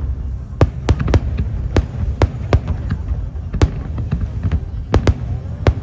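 Aerial fireworks bursting: about a dozen sharp bangs at uneven intervals over a steady low rumble.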